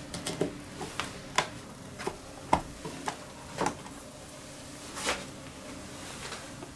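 About ten light, irregular knocks and clicks as a freshly cut loaf of bread and its slice are handled and shifted in a plastic bread-slicing guide.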